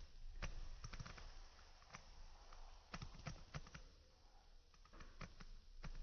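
Faint, irregular clicks and taps, a dozen or so scattered over a few seconds, above a low wind rumble.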